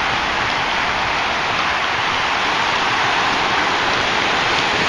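Small ocean waves breaking and washing up on a sandy beach, a steady, even hiss of surf.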